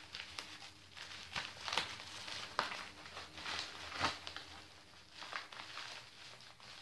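Yellow padded paper mailer envelope being torn and handled open, the paper crinkling and rustling irregularly with a few sharper crackles.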